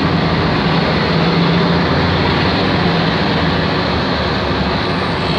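A boat's engine running with a steady low drone, heard from on board under a constant rushing noise.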